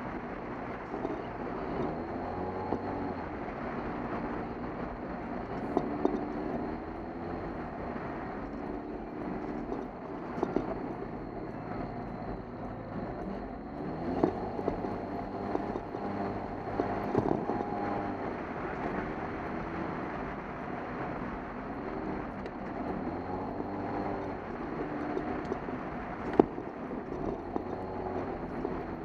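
Polaris RZR side-by-side's engine running under throttle from inside the open cab, its pitch rising and falling repeatedly with road noise beneath. A few sharp knocks come through over the rough trail.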